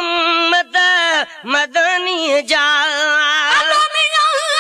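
A man singing a Sindhi naat unaccompanied, holding long notes with a wavering, ornamented pitch and breaking briefly between phrases.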